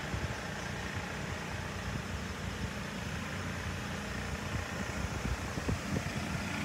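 A steady low engine hum, even throughout, over faint outdoor background noise.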